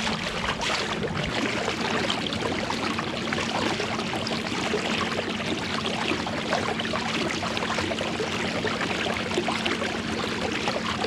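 Lake water lapping and splashing against a kayak hull, a steady dense wash of small splashes with a faint low hum under it.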